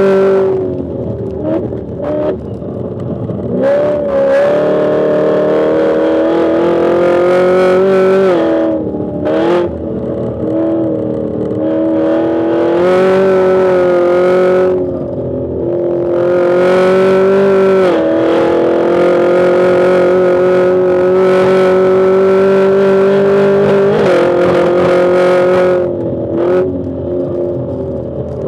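Chevrolet Camaro ZL1's supercharged 6.2-litre V8 pulling hard on track, its note holding high, then dropping sharply several times as the throttle is lifted for braking and gear changes before climbing again. It is not running cleanly: the driver puts it down to a slight misfire or the engine hunting for fuel, which kept him off full throttle.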